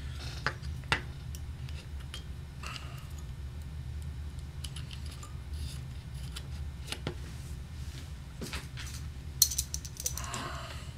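Small metal clicks and taps as an oboe key is handled and fitted back onto the instrument's keywork, with one sharper click about nine seconds in, over a steady low hum.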